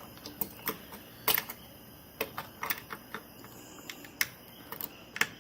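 Irregular sharp plastic clicks and taps of a CPU cooler being handled and clipped onto a motherboard, with two louder clicks about a second in and near four seconds.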